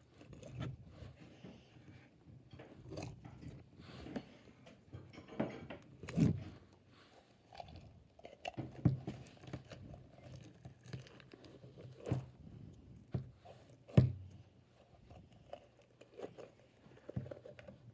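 Cake batter crunch slime with small beads in it being pulled out of its container and handled: irregular crackles, clicks and pops, the sharpest about 14 seconds in.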